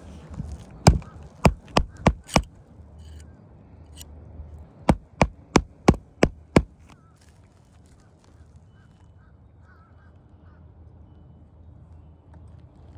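Hammer driving roofing nails through an asphalt shingle: a run of five sharp blows at about three a second, then after a pause a second run of six.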